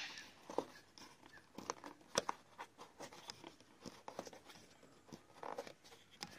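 Faint, scattered clicks and light taps from handling a roof rack's plastic foot and its bolt-and-clamp hardware, the sharpest click about two seconds in.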